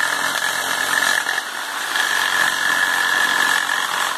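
Electric jigsaw running steadily as it cuts a narrow slot in a bamboo slat.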